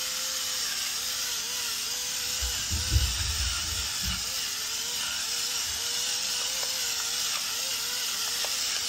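A steady mechanical whine with a hiss behind it, its pitch wavering slightly, as from a small electric motor running. Two low thuds come about three and four seconds in.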